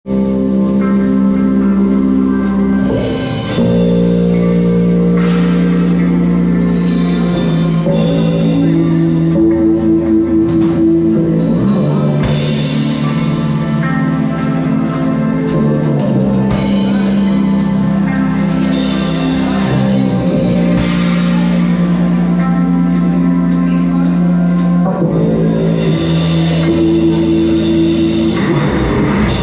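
Live metal band playing: electric guitar and bass holding long, sustained chords over drums and cymbals, the chords changing every few seconds.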